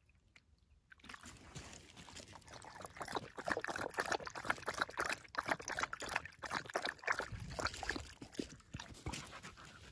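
A dog lapping water from a plastic bowl: a quick, steady run of wet laps and small splashes that starts about a second in.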